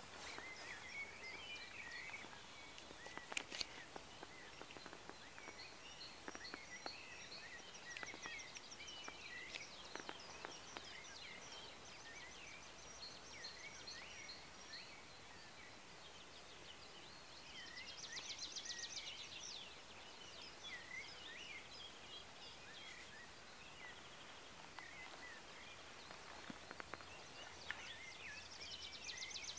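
Several songbirds singing faintly, a steady mix of short chirps and whistles, with a rapid trill about two-thirds of the way through and again near the end.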